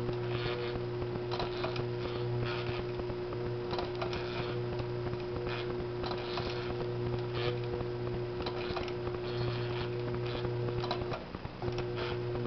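Yamata FY5318 walking foot sewing machine, driven by a servo motor through a speed reducer, sewing slowly through several layers of heavy leather. There is a steady motor hum with scattered clicks from the mechanism and needle, and the hum stops briefly near the end.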